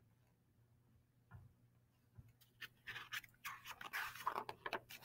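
Pages of a picture book being turned by hand: paper rustling and flapping in a quick run of short swishes, starting a little past halfway, after a couple of soft handling knocks.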